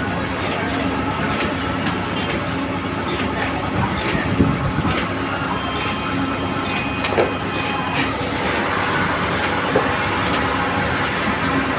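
A heavy engine running steadily, with scattered clicks and knocks.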